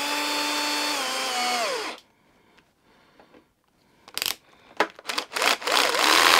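Cordless drill-driver driving wood screws through a hinge into plywood: a steady motor whine that sags slightly and stops about two seconds in, then a few short trigger bursts and a longer, noisier run near the end as the next screw is driven.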